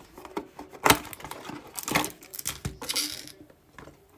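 Trading-card pack being opened by hand: its wrapper crinkling and tearing, then the cards sliding and rustling between the fingers, in a string of irregular sharp crackles and clicks.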